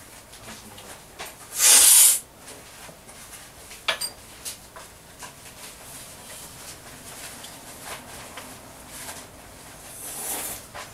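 A loud, short slurp of coffee, as when it is sucked hard off a cupping spoon to spray it across the palate, about two seconds in, with a softer slurp near the end. A sharp click comes just before four seconds.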